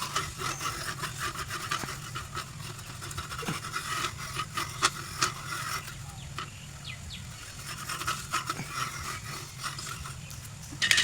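A brush scrubbing a hard surface in irregular rough scratching strokes, with a louder scrape at the very end.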